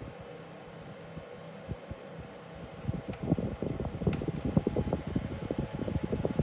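Fridgemaster FM168 13-inch mini tower fan running with a steady hum, its airflow buffeting the microphone. From about three seconds in the buffeting grows louder and a couple of faint clicks are heard.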